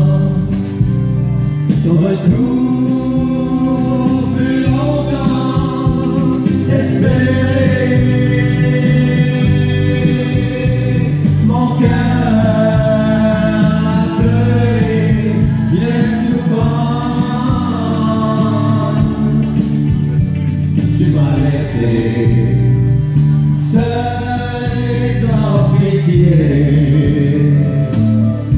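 A country-western song sung live by a man into a microphone, with an instrumental accompaniment, played loud through a PA system.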